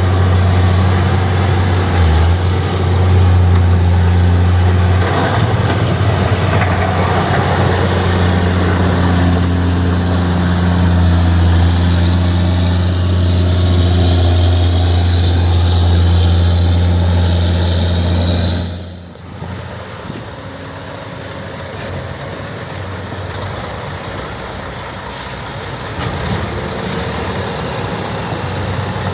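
Heavy diesel farm machinery running steadily with a deep, even engine hum. About two-thirds of the way through, the sound cuts suddenly to a quieter, more distant machine sound.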